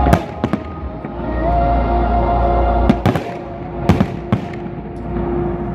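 A fireworks display with aerial shells bursting in sharp bangs: two near the start, then a quick cluster of about four, three to four and a half seconds in.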